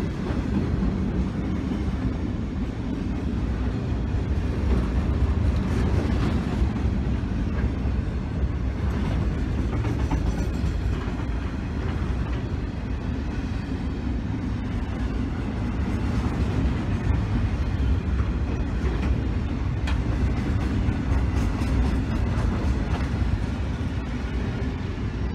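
Freight train wagons rolling past at close range: a steady low rumble of steel wheels on rail, with occasional faint clicks over the rail joints.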